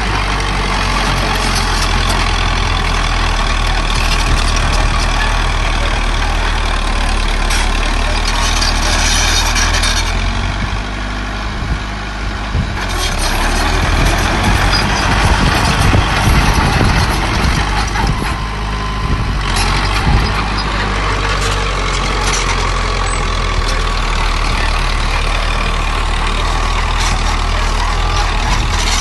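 Diesel engines of a small bulldozer and dump trucks running steadily, with occasional short knocks, and a slight dip in loudness about eleven seconds in.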